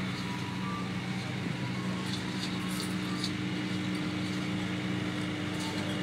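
Steady low mechanical hum with a constant drone, unchanging throughout, over a faint background hiss.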